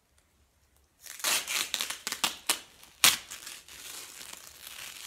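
Cloth gaffer tape being handled and worked over the mouth, a run of crinkling and tearing noise with a sharp crackle about three seconds in.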